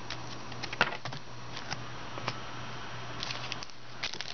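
Football trading cards being flipped and shuffled by hand: scattered light clicks and snaps of card stock, the sharpest about a second in and a quick run of them near the end, over a steady low hum.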